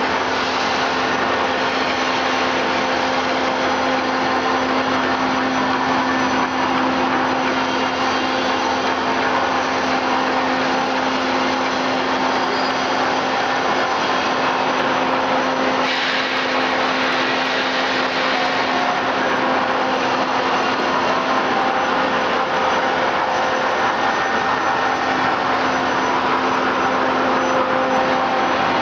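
Rice milling machine running steadily: a constant motor hum under a dense, even rushing noise, with no change in speed.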